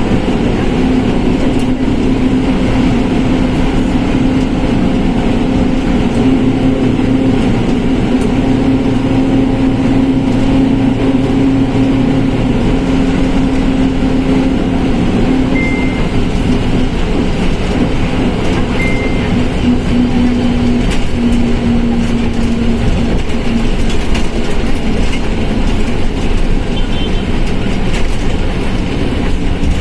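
Volkswagen Volksbus 17.230 OD diesel bus under way: a steady engine and road rumble with a humming drone from the transmission, which drops slightly in pitch about two-thirds of the way through. The transmission drone is the sign of a worn gearbox.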